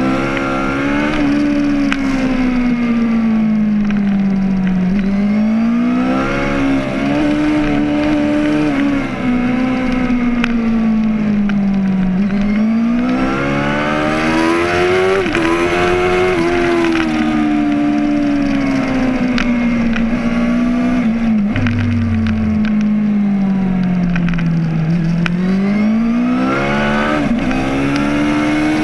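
Suzuki GSX-R 750 K5's inline-four engine running hard at high revs on track, its pitch climbing and sagging over several seconds at a time with the throttle, with short jumps in pitch at gear changes. Wind rushes past the bike throughout.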